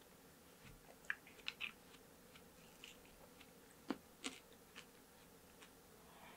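Faint, close-miked wet chewing of watermelon hwachae, with scattered soft mouth clicks. Two sharper clicks come a little past the middle.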